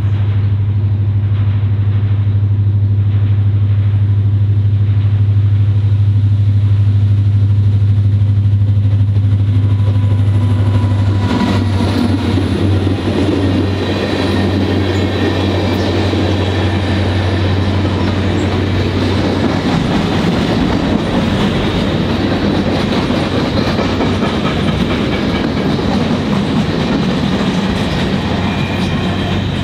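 A diesel-hauled freight train passing at track side. A steady low locomotive engine drone comes first. About eleven seconds in it gives way to the freight cars rolling by, their wheels rumbling and clattering on the rails.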